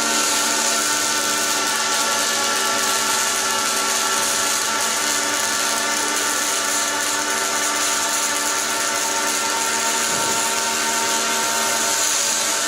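Industrial welding robot cell running: a steady motor whine in several pitches over a continuous hiss, unchanging throughout.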